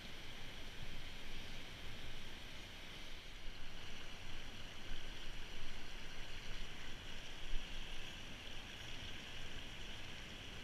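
Steady rush of river water flowing over shallow riffles and small rapids, with an uneven low rumble of wind on the microphone.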